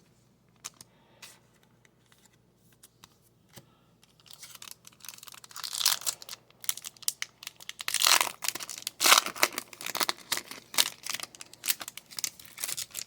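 A trading card pack wrapper being torn open and crinkled. After a few quiet seconds with a few light clicks, a dense crackling starts and builds, loudest a little past the middle.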